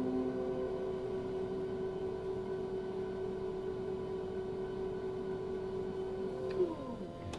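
Electric pottery wheel's motor whining at a steady pitch as the wheel head spins. Near the end there is a click, and the whine drops quickly in pitch as the wheel slows.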